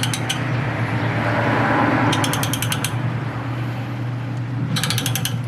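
Ring and pinion gears in a differential being turned over by hand to roll a contact pattern into the marking compound on the teeth: meshing gears rubbing, with two runs of rapid ratchet-like clicking, about two seconds in and again near the end, over a steady low hum.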